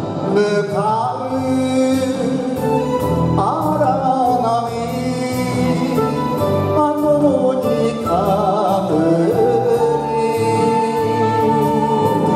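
A man sings an enka song into a handheld microphone over a karaoke backing track, holding long notes with a wavering vibrato.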